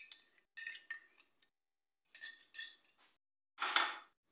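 A spoon clinking against a ceramic bowl and the clay pot as ginger-garlic paste is scraped out: a few short ringing clinks, then a longer scrape about four seconds in.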